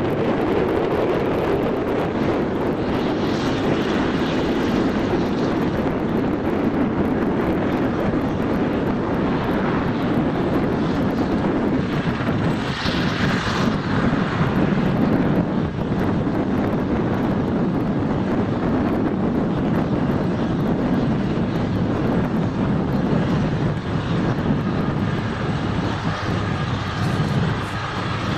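Aerospatiale AS 332 Super Puma helicopter running on the ground, its twin turboshaft engines and main rotor making a loud, steady noise.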